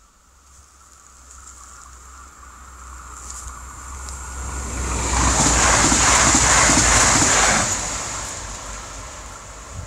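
Regional passenger train passing a level crossing: its rumble and wheel noise grow steadily, are loudest about halfway through, then die away as it moves off.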